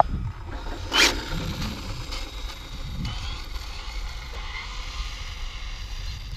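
Mugen MGT7 radio-controlled car pulling away at speed down the road, with a short loud rush about a second in, over a steady low rumble of wind on the microphone.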